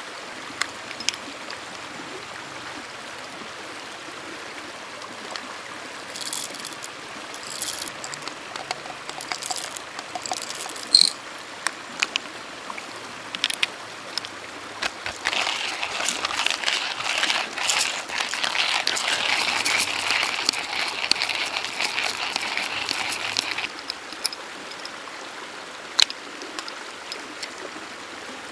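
River water flowing steadily, with scattered sharp clicks and knocks. About halfway through, a louder hissing rush rises over it for roughly eight seconds, then cuts off.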